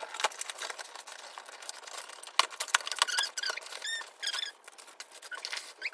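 A cardboard delivery box and its packaging being torn and pulled open by hand: a busy run of rustling, crinkling and crackling, with a few short squeaks about three to four and a half seconds in.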